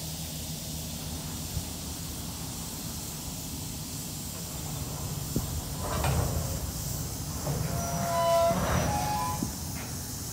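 Freight cars rolling slowly on the track with a steady low rumble, growing louder about six seconds in. Steel wheels squeal against the rails in short high-pitched squeals of a few steady tones, around six seconds in and again near the end.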